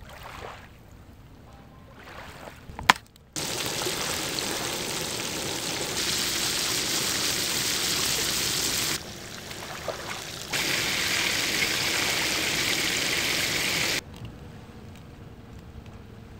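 Fish frying in hot oil in a frying pan: a steady, loud sizzle that starts suddenly about three seconds in, dips for a moment around nine seconds, and cuts off about fourteen seconds in. Just before the sizzle starts there is one sharp click.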